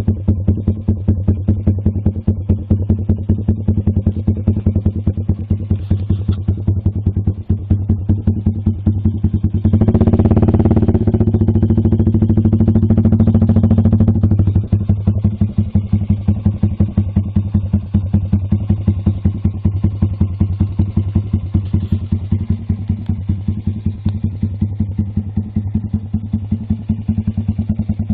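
Big-bored 210cc single-cylinder engine of a Lifan KP Mini, running through an aftermarket racing exhaust can with a custom baffle, giving a steady pulsing exhaust note at low revs. About ten seconds in it revs up louder and smoother for some four seconds, then drops back to the pulsing beat.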